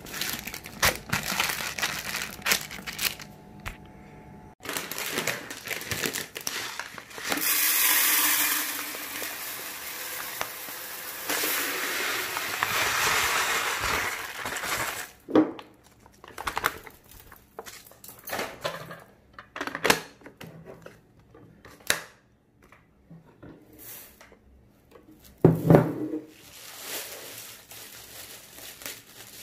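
Plastic grocery packets rustling and crinkling, then dry basmati rice poured from its bag into a clear plastic storage box in two long pours, a steady hiss of grains. Scattered clicks and knocks of plastic containers follow, with one loud knock near the end.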